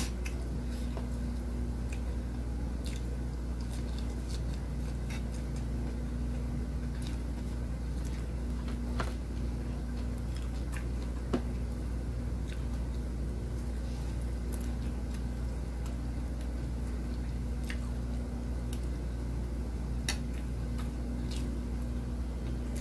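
Someone chewing a mouthful of food, with small scattered clicks and squishes, over a steady low hum.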